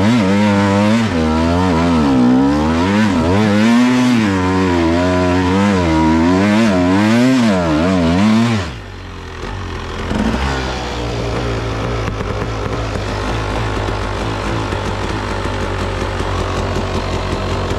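Husaberg TE 300 two-stroke single-cylinder enduro motorcycle engine revving under load on a steep snowy climb, the revs rising and falling about once a second. About eight and a half seconds in the revs drop sharply as the bike stops, and the engine settles into a steady idle.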